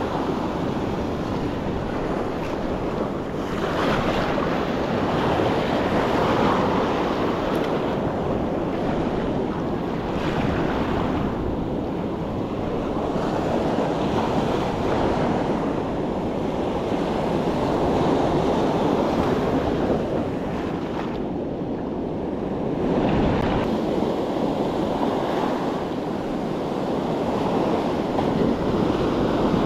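Ocean surf washing onto the shore, swelling and easing every few seconds, with wind buffeting the microphone.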